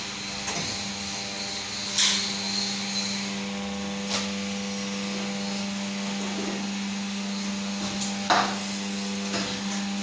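Leaf plate making press machines running with a steady hum, with a few sharp knocks and clatters about 2, 4 and 8 seconds in.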